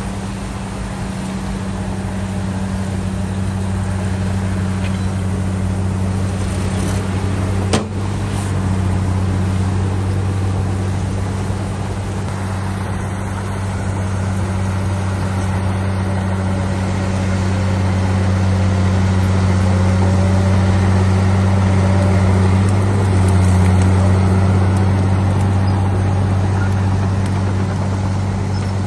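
Heavy earthmoving machine's diesel engine running steadily with a deep, even hum, with one sharp knock about eight seconds in.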